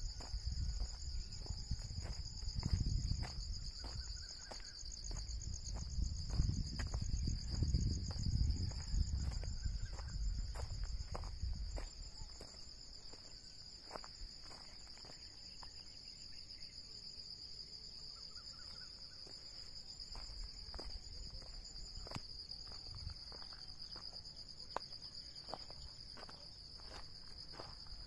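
Steady, high-pitched chorus of insects trilling without a break, with a low rumble over roughly the first twelve seconds and scattered faint ticks.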